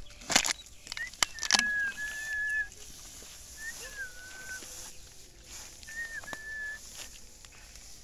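Tall dry grass rustling and crackling sharply as it is pushed through, loudest in the first two seconds, with three clear whistled notes about a second long each, the first two dipping slightly in pitch.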